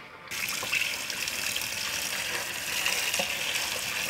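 Water running from a tap and splashing onto radish leaves being rinsed by hand in a pan; the flow starts suddenly just after the start and runs steadily.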